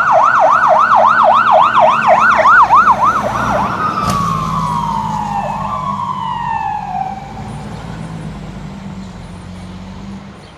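Fire engine siren in a fast yelp, sweeping up and down about three times a second, then changing to two long falling tones and fading as the truck pulls away. A low engine rumble runs underneath, with a sharp click about four seconds in.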